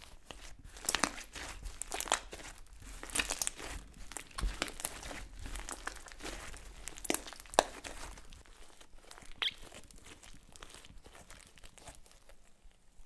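Hands squeezing and stretching thick slime mixed with foam balls and beads, giving sticky crackling and sharp pops. The crackles thin out after about eight seconds.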